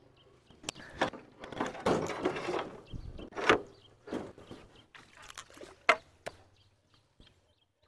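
Water splashing and sloshing in irregular bursts as people wade through a stream, dying away after about six seconds.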